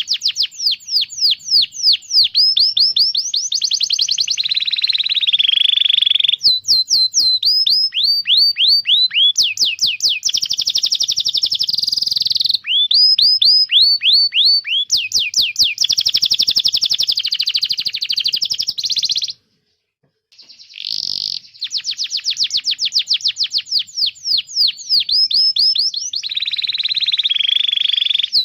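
Domestic canary singing: fast trills of short, downward-sweeping chirps that change from phrase to phrase, with a few lower, buzzier rolls, and a brief break about two-thirds of the way through.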